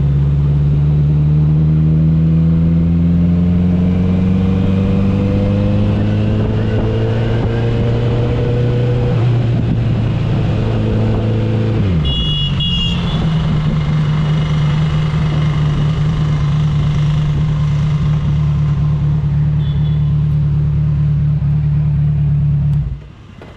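Kawasaki Z900's inline-four engine under way on the road. Its pitch climbs slowly as it pulls, drops sharply about halfway through, then holds steady at cruise. Near the end the engine sound falls away abruptly.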